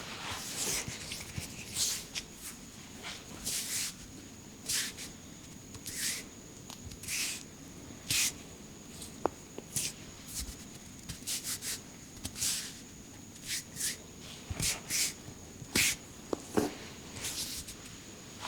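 Hands rubbing and stroking over skin, hair and clothing during a head and back massage: irregular brisk swishing strokes, about one or two a second.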